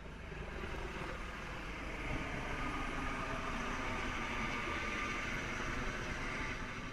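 Coast Guard helicopter flying overhead: a steady rotor and engine drone with a faint high whine, growing louder over the first couple of seconds.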